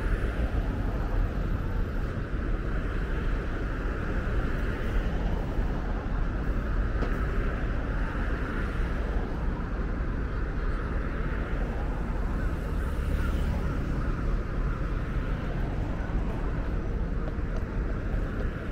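Steady outdoor city ambience: a continuous low traffic rumble with an even hiss over it.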